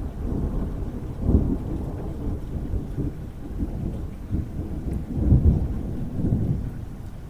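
Thunder rumbling in rolling waves, with louder peals about a second in and again about five seconds in, then dying away near the end.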